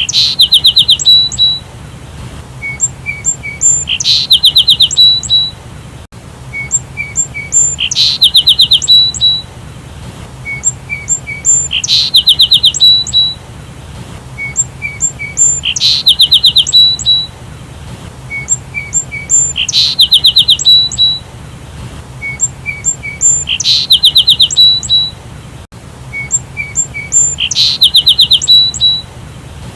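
Sparrow calls: a few soft chirps, then a loud rapid chattering run of notes. The same phrase repeats evenly about every four seconds.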